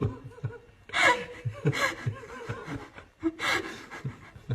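People laughing and gasping, with three louder outbursts, one falling in pitch.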